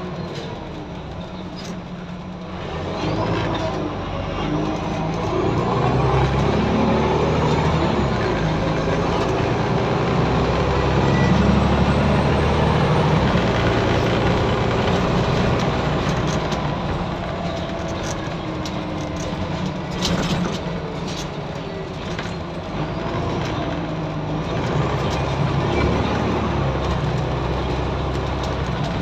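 Scania N94UD OmniDekka double-decker bus's nine-litre five-cylinder diesel engine being driven hard, heard from the upper deck. The engine's drone builds over the first few seconds, stays loud to about halfway, eases off, then builds again near the end, with a few sharp knocks about two-thirds through.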